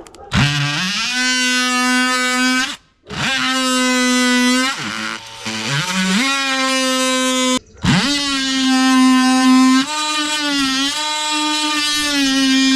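DeWalt oscillating multi-tool with a wood-cutting blade cutting Masonite soffit: a loud, steady buzzing drone that winds up in pitch each time it starts and wavers as the blade loads. It stops briefly twice, about three and eight seconds in, and eases off once in between.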